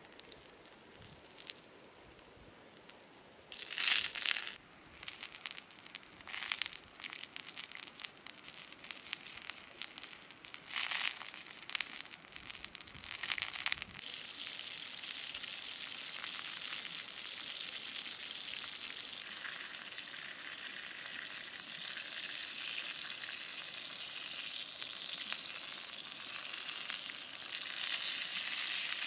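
Whole frog frying on a hot stone slab over a wood fire: its juices sizzle and crackle in short spurts at first, then from about halfway settle into a steady sizzle that gets louder near the end.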